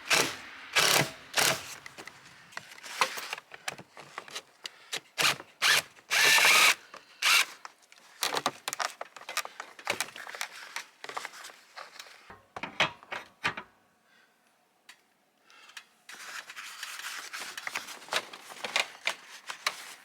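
Short bursts from a power drill driving screws, among clicks and knocks of parts being handled, while heat pump line-set cover track is fastened up. The longest and loudest burst comes about six seconds in, with a quiet pause a little after two-thirds of the way through.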